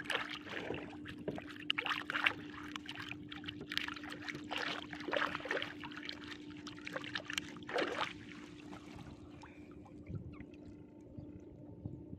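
Water splashing and dripping in irregular bursts as a tangled fish is worked out of a gill net in shallow water, over a steady hum. The splashing dies down about nine seconds in.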